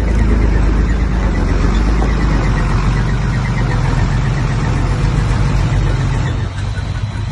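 Diesel engine of heavy earthmoving machinery running steadily, easing slightly near the end.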